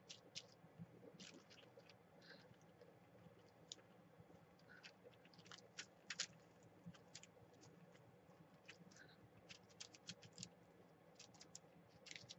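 Faint, scattered light scratches and taps of a sponge being pressed and rubbed over paper cutouts on a page, smoothing them down so they sit flat.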